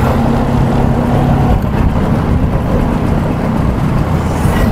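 A vehicle engine running steadily, with a low rumble of road and traffic noise.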